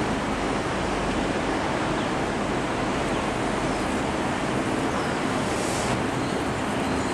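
Steady rushing noise, even in level throughout, with no distinct knocks or clinks standing out.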